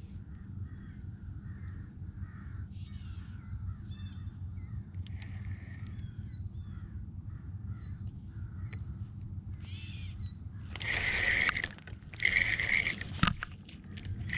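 Crows cawing: several loud, harsh caws about eleven and twelve seconds in, after a stretch of fainter repeated bird calls, over a steady low rumble.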